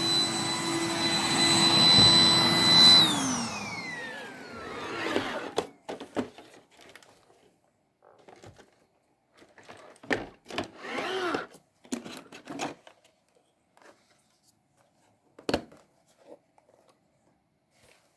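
Roomba 980 robot vacuum running with a steady high whine, then switching off about three seconds in, the whine falling in pitch as the motor spins down. Scattered clicks and knocks follow.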